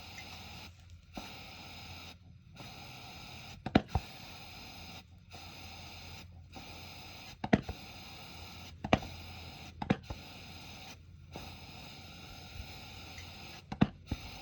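Standard 500 CP pressure lantern burning with a steady hiss, its valve open and mantle lit. The hiss cuts out briefly several times, and about half a dozen sharp clicks sound through it.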